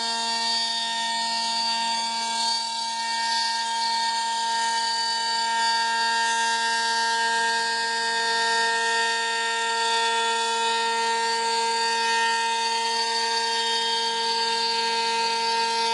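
CNC router spindle whining at a steady pitch as its end-mill bit cuts a groove along a wooden plank, with a hiss of cutting over it.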